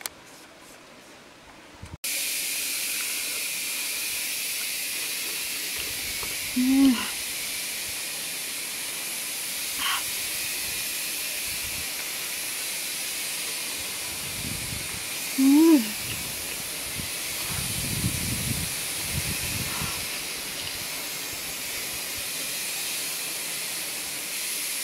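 A woman eating and making short, hummed "mm" sounds of enjoyment, about 7 and 16 seconds in and again at the end. Under them is a steady high-pitched hiss that starts suddenly about 2 seconds in.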